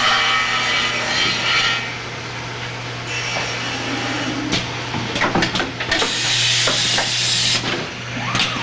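Automated door-handle assembly machine running: a steady hum with two stretches of compressed-air hiss and several sharp pneumatic clicks and clacks as its tooling moves.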